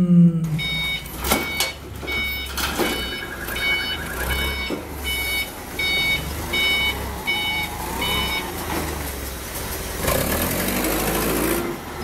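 Forklift's warning beeper sounding about twice a second, stopping about two-thirds of the way through, over the steady low rumble of the LPG forklift's engine: the alarm that warns people nearby while the truck moves.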